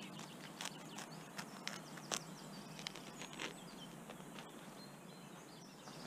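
Large blade of a Victorinox Spartan pocketknife cutting through a crusty bread roll, with scattered faint crackles and clicks from the crust. Faint bird chirps can be heard in the background.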